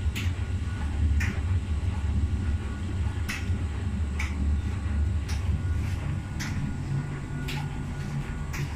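Miele W Classic WDA 111 front-loading washing machine running with a bulky duvet load: a steady low rumble with a sharp knock about once a second as the drum turns.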